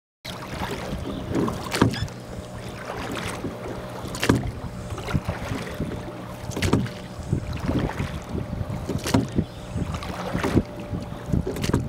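A small rowboat being rowed with a pair of wooden oars in metal oarlocks: a sharp knock with each stroke, about every two and a half seconds, over water noise and wind on the microphone.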